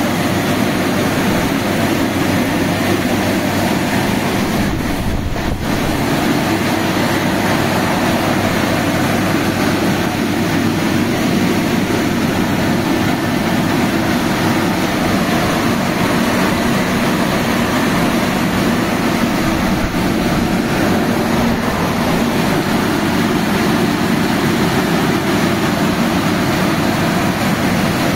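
Touchless automatic car wash gantry running: a loud, steady rushing noise, dipping slightly about five seconds in.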